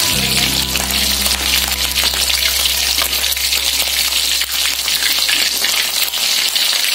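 Chicken drumsticks deep-frying in hot oil in a wok: a steady, dense sizzle with fine crackling.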